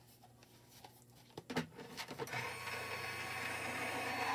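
A few light handling knocks, then about two seconds in a Spellbinders Gemini electric die-cutting machine's motor starts and runs steadily as it feeds the die-and-cardstock sandwich through its rollers.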